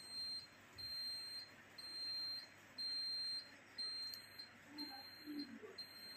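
Electronic alarm beeping: a single high tone, each beep about half a second long, repeating evenly about once a second.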